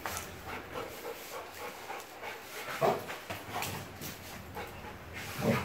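Rottweiler panting in quick breaths while playing rough, with two louder short sounds, one about three seconds in and one near the end.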